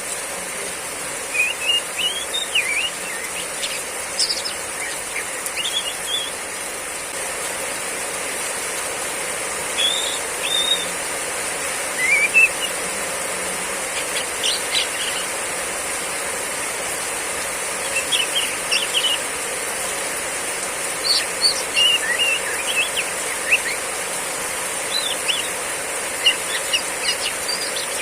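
Female oriental magpie-robin giving short chirping 'riwik' calls in scattered clusters, over a steady hiss of heavy rain.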